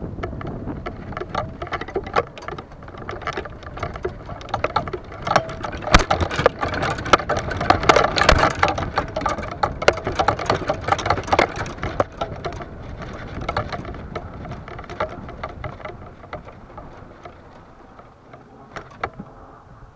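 Golf clubs clattering against each other in their bag on a moving golf cart: a dense, irregular run of rattling clicks, loudest midway and easing off near the end.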